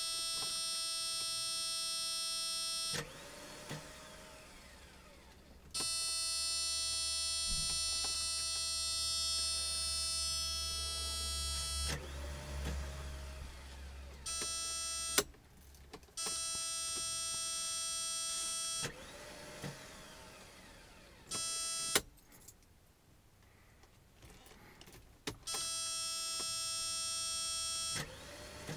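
Steady high electrical whine from a car that won't start. It cuts in and out every few seconds, with sharp clicks at several of the changes and a low hum under it for a stretch in the middle.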